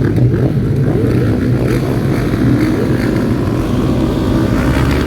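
Racing car engines running loud and continuous, a dense low engine rumble.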